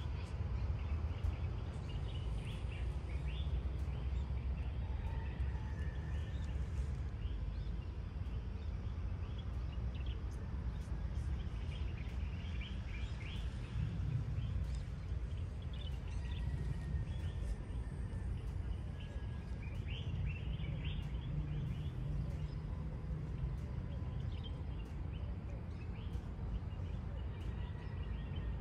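Many birds chirping and calling in short, scattered notes, with a few brief whistled calls, over a steady low rumble.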